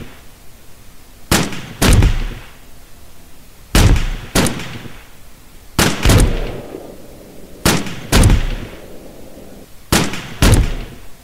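Pistol shots fired in pairs, about half a second between the two shots of a pair and about two seconds between pairs, ten shots in all, each with a short ringing tail.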